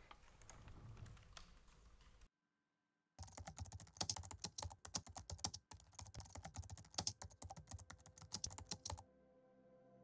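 Typing on a computer keyboard: quick runs of key clicks in an irregular rhythm, starting after a brief dead silence about three seconds in and stopping about a second before the end, when soft ambient music with held tones comes in.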